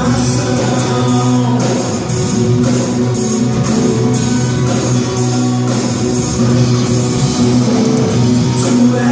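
Live worship band playing an instrumental passage: electric guitar and bass over a drum kit with a steady beat, in a rock style.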